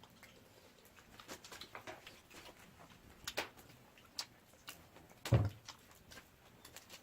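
Scattered light clicks and knocks, with one heavier thump a little over five seconds in.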